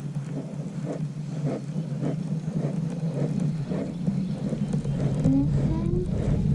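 Motorboat engine droning steadily, getting somewhat louder towards the end.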